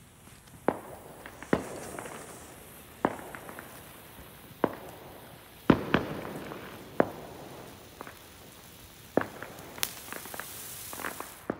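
Consumer ground firework going off: a hissing spray of sparks punctuated by about a dozen sharp pops and bangs at irregular intervals. It cuts off suddenly at the end.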